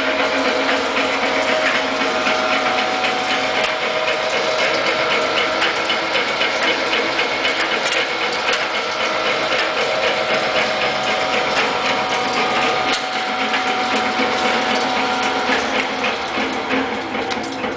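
Hobart 4346 meat mixer-grinder with a 7.5 HP motor running steadily, a mechanical whir with fine rapid ticking. Near the end the pitch shifts and the sound begins to fade as the machine winds down.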